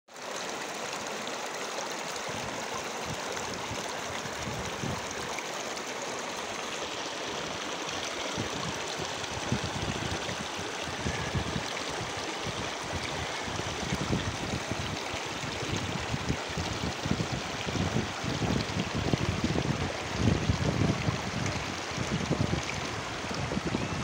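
Shallow mountain stream rushing and splashing steadily over rocks and small rapids. Low rumbling buffets on the microphone come in and grow stronger through the second half.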